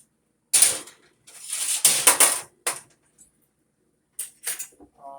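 Kitchen handling noise: several short bursts of rustling and scraping as the baked salmon dish is moved, the loudest about two seconds in.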